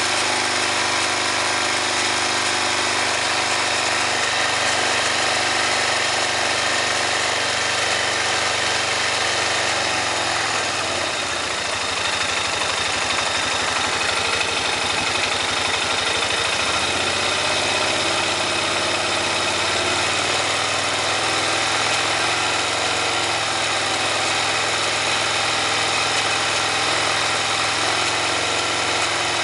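2005 Honda Rincon ATV's single-cylinder engine running at idle, its note changing for several seconds about ten seconds in. The engine has only 300 miles, and the owner hears a grinding from it when the throttle is opened.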